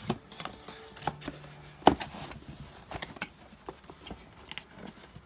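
Small clicks and taps of drone parts and packaging being handled, with one sharper knock about two seconds in.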